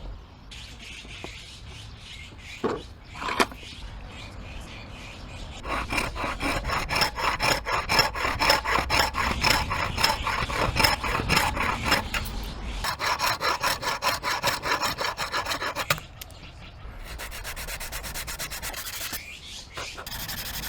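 A hand tool working wood in rhythmic back-and-forth strokes, about four a second, with a faster, finer run of strokes near the end. Two short knocks come before the strokes start.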